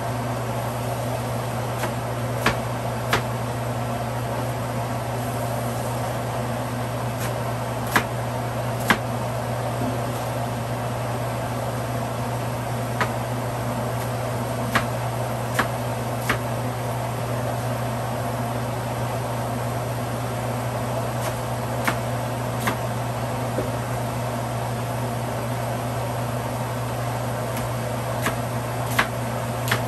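Kitchen knife chopping bok choy on a cutting board: short sharp taps, often in pairs, every few seconds. Under them runs a steady low mechanical hum.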